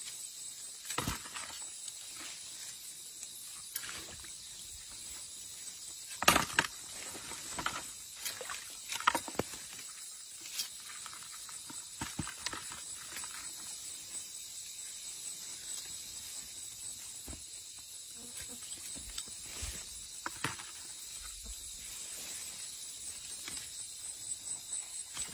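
A few scattered short knocks and scrapes of handling, the loudest about six and nine seconds in, over a steady faint hiss.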